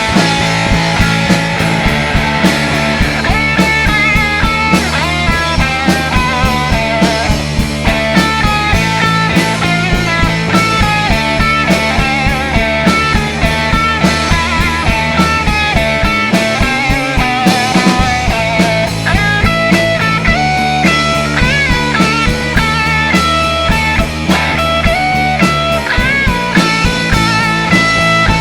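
Pop-punk band playing an instrumental passage live: guitars, bass and drums, with a steady drum beat.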